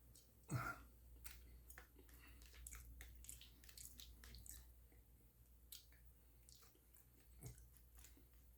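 Faint wet chewing and lip-smacking clicks of someone eating close to the microphone, with one louder thump about half a second in.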